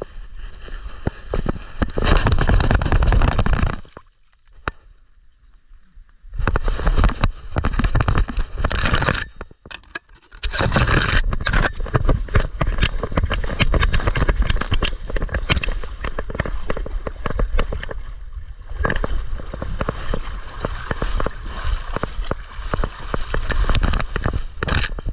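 Scraping, rustling and splashing from a camera mounted on a bullmastiff's back as the dog pushes through dry brush and shallow river water and over wet sand, with the mount rubbing against his fur. The noise comes and goes in loud stretches, dropping away briefly about four seconds in and again near ten seconds.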